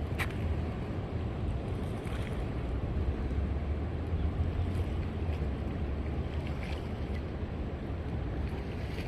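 Steady low roar of big ocean waves breaking on a reef, with wind buffeting the microphone.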